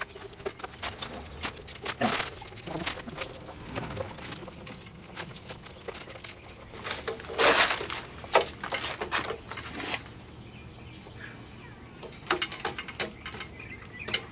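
Scattered clicks, knocks and rubbing as rubber windshield molding is worked onto a Jeep Wrangler YJ windshield frame and the frame is handled, with a louder scraping rustle about halfway through.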